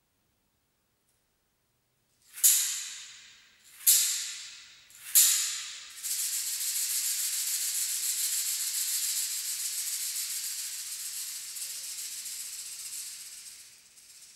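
Hand rattle shaken: three single sharp shakes, each dying away over about a second, then a steady, continuous high rattling for about seven seconds that fades out near the end.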